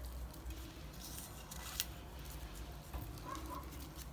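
Faint kitchen handling noises while a plate is being garnished: light scattered rustles and one sharp click a little under two seconds in.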